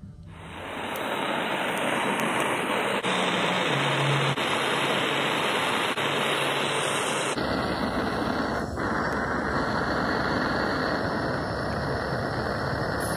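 Handheld gas torch burning with a steady hiss, heating a car thermostat so that its wax pellet melts and the valve opens. About seven seconds in the hiss turns deeper.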